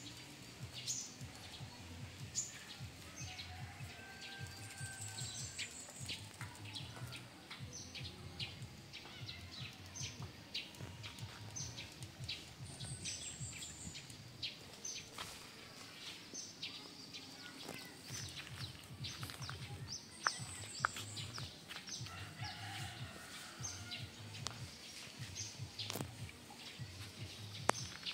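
Outdoor tree-canopy ambience with frequent short, high bird chirps, and three times a brief high trill of quick descending notes.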